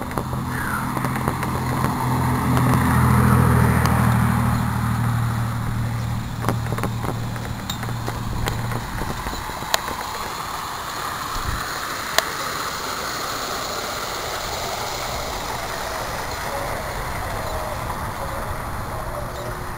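A motor vehicle's engine running with a steady low hum, growing louder to a peak a few seconds in and then fading away by about nine seconds, over the steady hiss and rattle of a bicycle ride, with a few sharp clicks.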